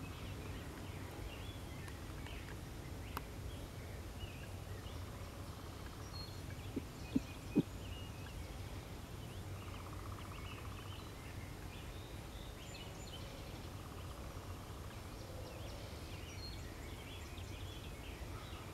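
Quiet pasture ambience: a steady low rumble of wind with faint, scattered bird calls, and two sharp clicks about seven seconds in.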